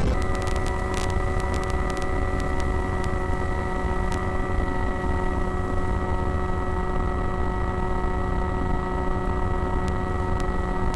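Electric motor and propeller of a long-range FPV flying wing in cruise, giving a steady whine at constant throttle over wind rush on the onboard microphone.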